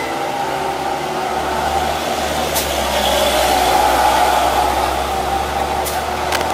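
Diesel engine of a loaded dump truck labouring up a steep hairpin climb. It grows louder as the truck swings close past, loudest about four seconds in, and stays steady as the truck pulls away uphill.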